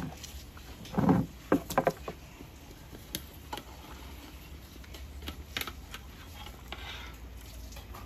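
Kitchen clatter: a short knock about a second in, a quick run of light clinks just after, then scattered single clicks of utensils and dishes over a steady low hum.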